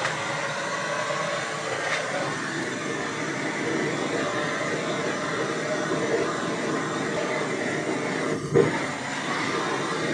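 Handheld butane torch on a gas canister burning steadily as its flame heats blue PVC pipe to soften it for bending, with one short knock about eight and a half seconds in.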